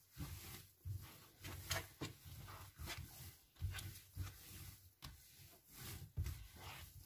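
Bread dough kneaded by hand on a countertop: faint, irregular soft thumps about once a second as the dough is pressed and folded, with some rubbing.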